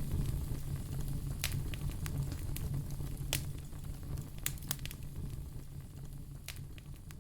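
Wood fire in a fireplace crackling, with sharp irregular pops over a low steady rumble. It fades gradually quieter toward the end.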